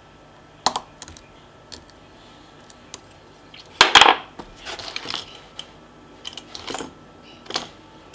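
Lock-picking tools working in a pin-tumbler challenge lock clamped in a vise: scattered small metallic clicks and short scrapes, with a louder metal rattle about four seconds in.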